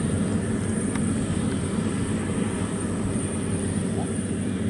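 Two World WD102PRO rice combine harvesters running together while harvesting, a steady engine and threshing drone that holds level throughout.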